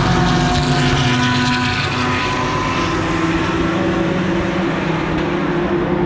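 Engines of a pack of GT race cars passing at racing speed, several engine notes overlapping and shifting in pitch as the cars go by and pull away down the straight.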